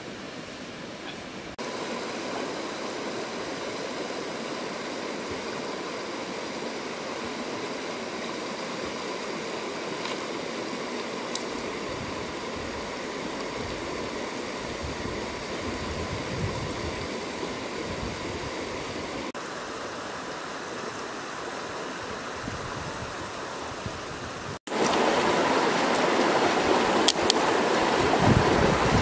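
River water rushing over rocks in small cascades: a steady rush that gets clearly louder about three-quarters of the way through, with a few faint knocks near the end.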